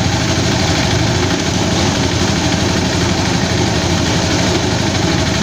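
Engine-driven rice threshing machine running steadily, with a continuous mechanical noise that holds even throughout.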